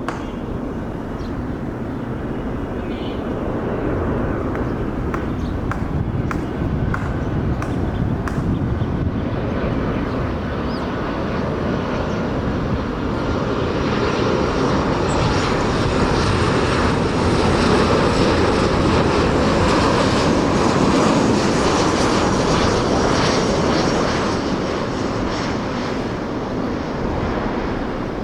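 Boeing 737 airliner landing, its jet engines giving a steady rushing noise that grows louder from about halfway through, peaks around two-thirds of the way in, then eases near the end.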